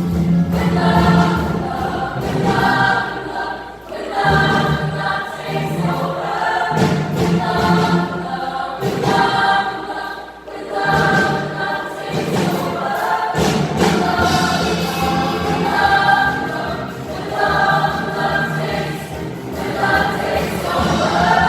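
A junior high school choir singing a song in sung phrases, with short breaks between phrases about four, ten and thirteen seconds in.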